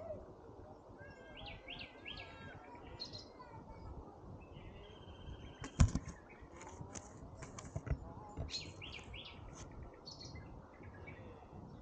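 Small birds chirping and twittering in short repeated calls. About six seconds in there is one sharp knock, the loudest sound, followed by a few lighter clicks.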